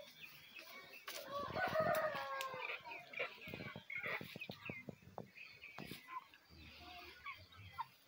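Chickens: a rooster crows once, a long call about a second in, then hens cluck in short bursts, with a run of brief knocks in the middle.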